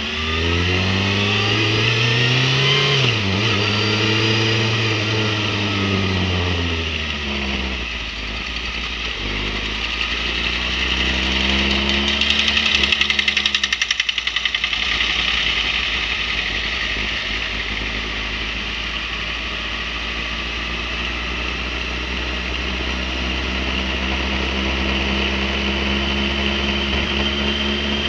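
Motorcycle engine riding in traffic: revs climb and drop several times in the first ten seconds as it shifts gears, then it settles into a steadier low running note, with road and wind noise throughout.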